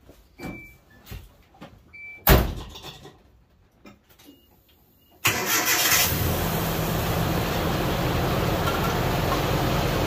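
Door of a Nissan Hardbody pickup shutting with a thump about two seconds in. About three seconds later the truck's engine starts abruptly and runs on at a steady idle.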